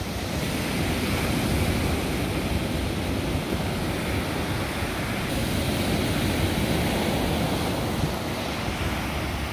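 Ocean surf breaking and washing up on a sandy beach, a steady rush of waves.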